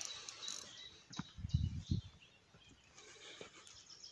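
Small birds chirping faintly in short high notes, with a few low thumps about a second and a half in.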